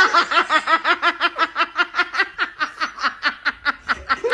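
A person laughing hard: a long, unbroken run of quick high-pitched laughs, about seven a second, tailing off toward the end before a louder burst of laughter.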